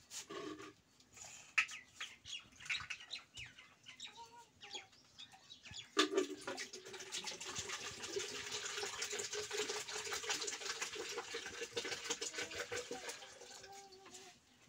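Water pouring from the spout of a large metal water pot into a plastic jug: a steady splashing stream starting sharply about six seconds in and tailing off near the end. Before it, a few knocks and clinks as the pot is handled and tipped.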